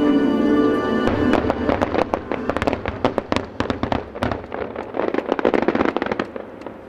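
Fireworks finale barrage: a rapid string of sharp bangs and cracks from aerial shells bursting, starting about a second in and thinning out near the end, with the show's music holding a last chord as it begins.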